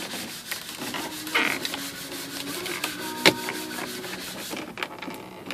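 Plastic dashboard trim scraping and rubbing as the cup holder is worked out of a BMW E90's dash, with one sharp click about three seconds in.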